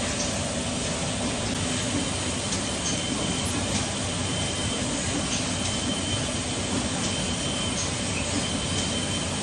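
An automatic saw-blade grinder's abrasive wheel is grinding the teeth of a circular saw blade: a steady grinding hiss with a thin, high whine over it and faint ticks now and then.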